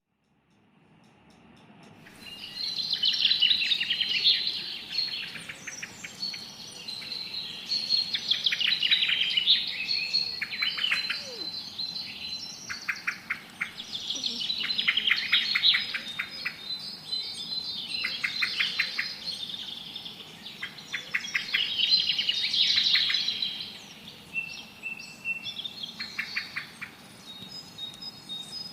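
Pet birds chirping and chattering in fast runs of high chirps, starting about two seconds in and coming in several louder bouts.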